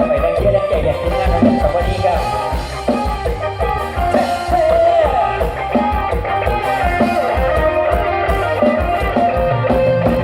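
Mor lam band music: a steady drum beat under a melodic instrumental line.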